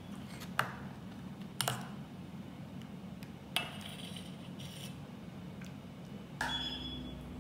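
Steel ladle clinking against a stainless steel pot and a glass bowl while soup is served, four separate knocks, two of them ringing briefly, over a faint steady hum.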